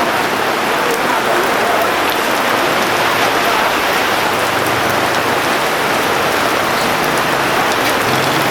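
Heavy rain falling steadily on hard surfaces: a loud, even hiss with scattered sharp drop taps.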